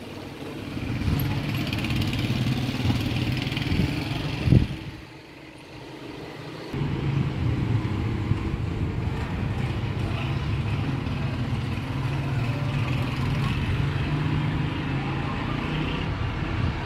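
Mating tortoises: the mounted male's low, rough calls run on for several seconds. A single sharp knock comes about four and a half seconds in, likely shell on shell. The calls break off briefly, then resume and continue.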